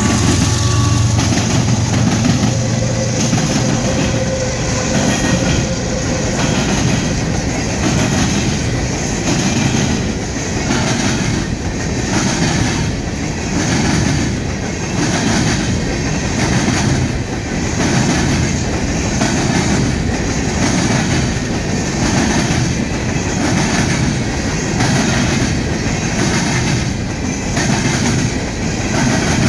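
A freight train's coal hopper cars rolling past, steel wheels on the rails clacking in a steady rhythm about once a second. The CSX locomotive's diesel engine drone fades out in the first second or so.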